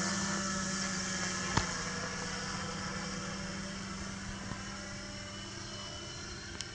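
Hexacopter drone's six rotors humming steadily as it flies off toward its waypoint, fading slowly as it moves away. A sharp click about a second and a half in.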